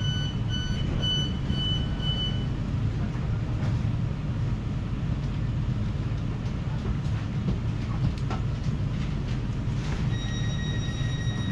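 Door-closing warning beeping inside a standing CFL regional train, about two beeps a second, stopping about two seconds in. Then the train's steady low rumble, with a steady high tone coming on near the end.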